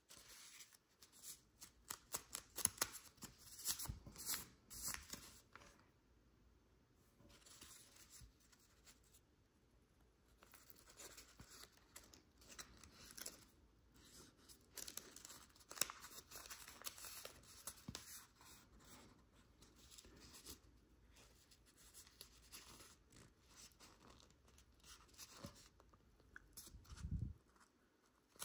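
Origami paper being folded and creased by hand: irregular crisp rustles and crinkles, with short pauses between folds. A dull low thump near the end.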